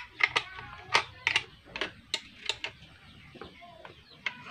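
Sharp metallic clicks and taps of a small metal tool working the screw and breaker-point (platinum) contacts of a homemade fish shocker's ignition-coil unit. Irregular, several a second, thinning out a little past halfway.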